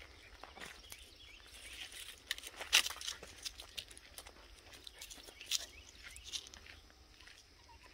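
Footsteps crunching and rustling through dry fallen leaves and twigs in uneven crackles, the sharpest about three seconds in and again about five and a half seconds in.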